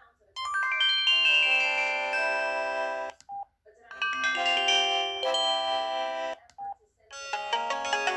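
Samsung SGH-E330 mobile phone playing short polyphonic chime melodies one after another, each lasting about two and a half seconds, with a short keypad beep between them as the next tone is selected.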